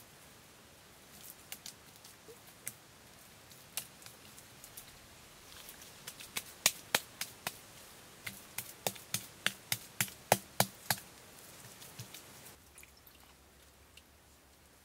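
Hands slapping and patting clay onto a sculpted mud cat house: a run of sharp slaps, about two to three a second and loudest midway, then only a few soft touches near the end.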